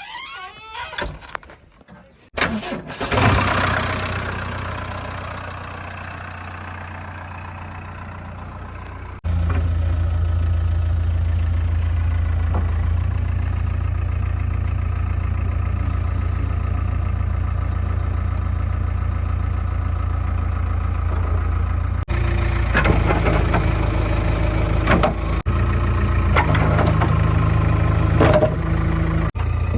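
Diesel engine of heavy farm or construction machinery starting up a couple of seconds in, then running at a steady idle. The level jumps abruptly a few times.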